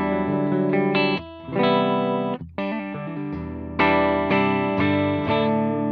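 Electric guitar playing ringing chords through an AMT Pangaea CP100 impulse-response loader, recorded direct. The preset mimics a Vox amp through a Celestion speaker-cabinet IR. The chords are cut off briefly about a second in and again about two and a half seconds in.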